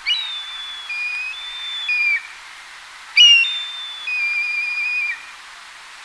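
Black kite calling: two whistled phrases about three seconds apart, each opening with a sharp note and running on in long, slightly wavering whistles that alternate between a higher and a lower pitch, ending in a downward slur. The call is often likened to a kettle whistling at the boil.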